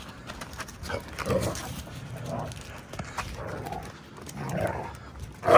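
Two huskies play-wrestling: several short growls and grumbles, with scattered scuffling clicks of paws and claws on brick paving.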